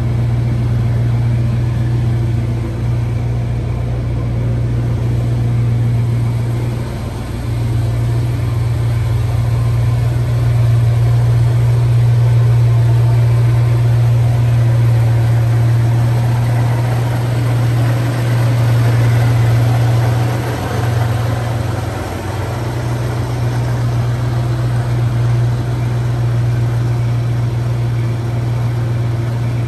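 1986 Chevrolet K10's factory 5.0-litre small-block V8 idling steadily.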